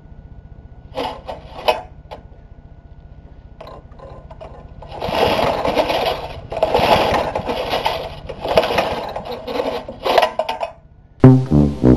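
Briggs & Stratton 3.5 hp lawnmower engine being pull-started: about five rough pulls on the recoil starter in the second half, the engine turning over without firing. The owner blames a clogged fuel pickup tube. Music starts abruptly near the end.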